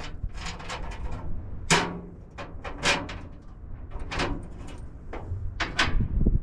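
A string of short knocks, clinks and scrapes from hand tools and parts being handled, about a dozen irregular strokes, over a steady low rumble.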